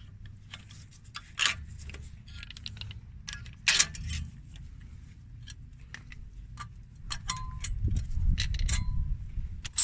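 Metal hand tools and brake parts clinking and knocking, scattered and irregular, with two clinks near the end leaving a short metallic ring, over a low rumble.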